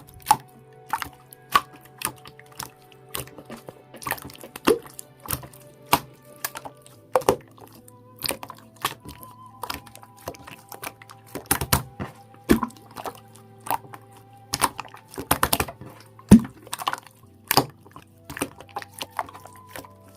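Slime being squished and played with by hand: an irregular run of wet clicks and pops, several a second at times, over soft background music.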